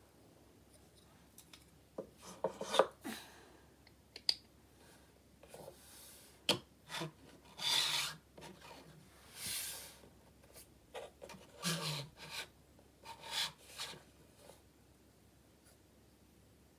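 A small L-1011 airliner model and its display stand being handled on a desktop: scrapes and rubs with a few sharp clicks, scattered irregularly and dying away a couple of seconds before the end.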